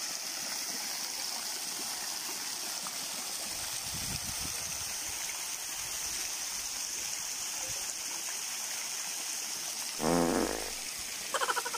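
Fountain jets splashing and pouring steadily into a stone basin, an even rushing of water. About ten seconds in, a short low burst cuts in, then a brief pitched sound near the end.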